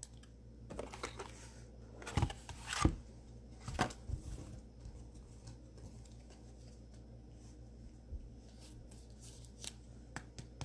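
Trading cards being handled and sorted by hand: a few short taps and slides of card stock in the first four seconds, then faint light ticks.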